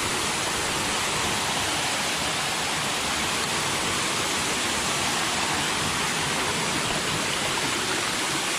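Small waterfall: water pouring and splashing over rocks in a steady, unbroken rush.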